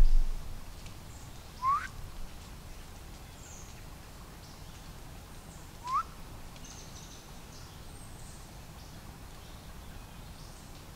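A person whistling: two short, rising whistles about four seconds apart, made to let a hunter nearby know someone is there. A dull low thump at the very start.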